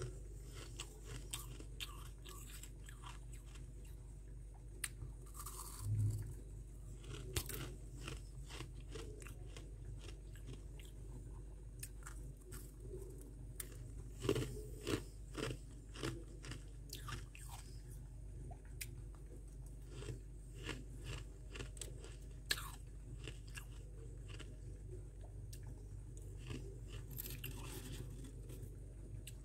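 Close-up chewing and crunching of mouthfuls of powdery freezer frost, in irregular crisp crackles, with a few louder bites mixed in.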